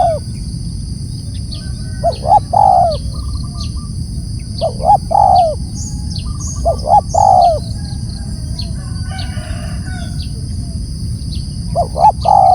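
Spotted dove (tekukur) cooing its loud multi-note call, about five phrases with a longer pause before the last, over small birds chirping.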